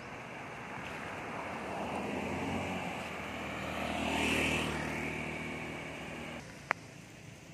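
Road traffic passing close by: cars and motor scooters going past, the noise swelling to its loudest about four seconds in, with a low engine hum. The sound drops off suddenly a little after six seconds, and a single sharp click follows.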